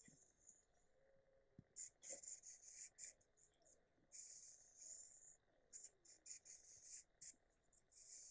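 Faint, high-pitched insect chirping in irregular bursts of a second or so, starting about two seconds in.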